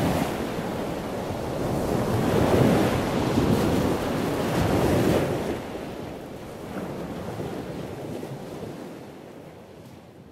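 Ocean surf washing in, with wind on the microphone; the noise swells and eases, then fades out over the last few seconds.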